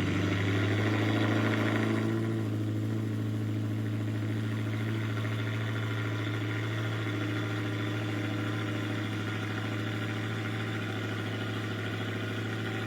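V8 engine idling steadily through its exhaust with a deep, even rumble. It is slightly louder for the first couple of seconds, then settles.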